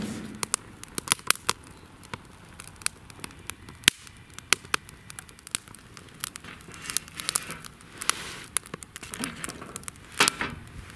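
Small wood fire crackling and popping in a fire stand, with irregular knocks as split logs are laid on the grate; a louder clatter near the end.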